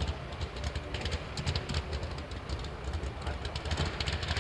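A large engine rumbling low and unevenly at low throttle, with scattered short crackles.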